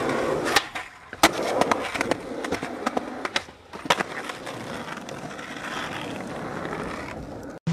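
Skateboard wheels rolling over concrete and asphalt, broken by several sharp clacks of the board as tricks are popped and landed; the loudest clack comes just over a second in.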